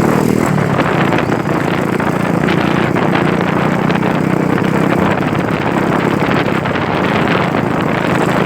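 Motorcycle engine running steadily while being ridden, its hum under a broad rushing noise.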